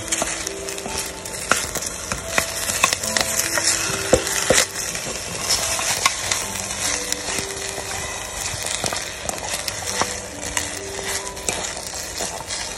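Chopsticks stirring fried fish cakes in a stainless steel pot, with a steady sizzle from the still-hot caramel sauce and scattered sharp clicks of the chopsticks against the pot.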